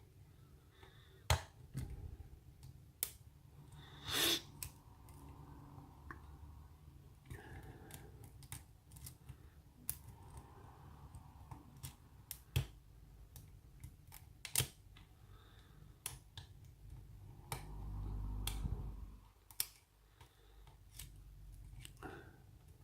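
Hook pick and tension wrench working the pins of a pin-tumbler challenge lock: irregular sharp metallic clicks and light scraping as pins set under tension. About three quarters of the way through there is a low rumble lasting about two seconds.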